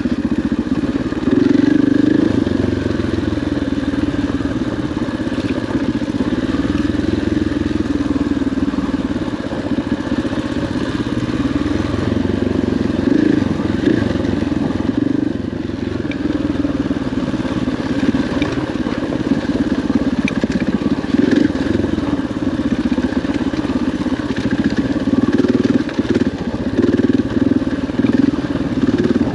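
Dirt bike engine running on a trail ride, its pitch rising and falling as the throttle is worked, with occasional knocks and clatter from the rough ground.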